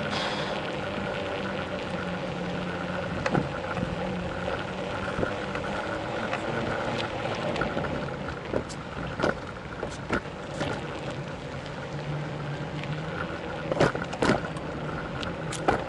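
Ride-along noise of a bicycle rolling over paving and asphalt: a steady rush of tyre and wind noise, broken by scattered sharp rattling knocks as it goes over bumps. The two loudest knocks come close together near the end.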